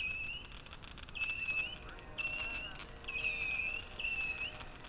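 A 50-shot Super Saturn missile battery firing a run of whistling missiles: about six high whistles, each about half a second long and bending upward at its end, roughly one a second, with small sharp pops in between.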